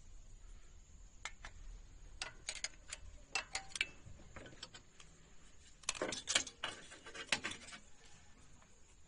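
Steel hand tools clinking on the valve gear of a Maruti Suzuki Alto engine as the tappets are adjusted: a ring spanner and screwdriver tapping and turning on the rocker-arm adjusting screws and locknuts. Scattered sharp metallic clicks, with a louder cluster about six seconds in and another near seven and a half seconds.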